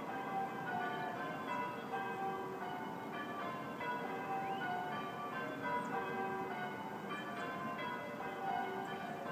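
Church bells ringing: several bells at different pitches struck one after another in a continuous peal, each note ringing on and overlapping the next.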